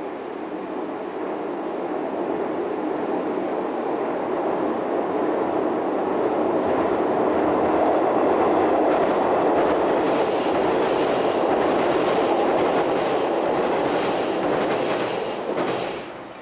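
Electric passenger train crossing a steel girder railway bridge: a steady rumble of wheels on the bridge with a clickety-clack over the rail joints. It swells as the train comes on, is loudest in the middle, and falls away abruptly near the end.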